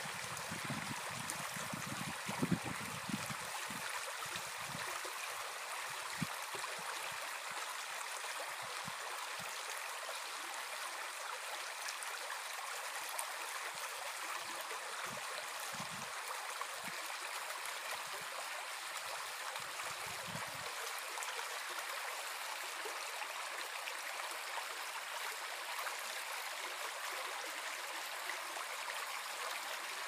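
Small brook babbling: a steady rush of running water, with a few short low rumbles in the first few seconds and again around fifteen to twenty seconds in.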